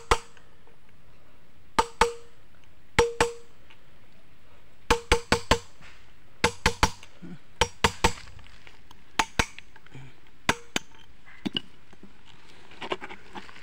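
A hammer strikes a steel rod driven through the wheel hub against the inner race of a Honda CB Unicorn rear wheel bearing, knocking the bearing out of its seat. The blows come in quick pairs and small groups, about twenty in all, each with a short metallic ring. Near the end there is a lighter clatter.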